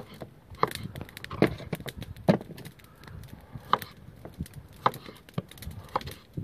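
A kitchen knife slicing peeled raw potatoes on a wooden cutting board: sharp knocks as the blade goes through and hits the board, irregularly spaced, about one a second.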